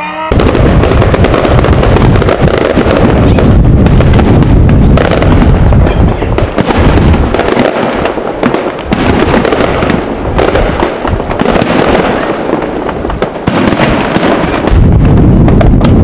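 Fireworks display: a continuous barrage of aerial shell bursts and crackling, loudest in the first few seconds and again near the end.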